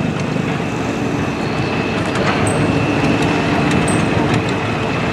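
Large engine of a long-tail boat running loud and steady, with its long-shaft propeller churning the water.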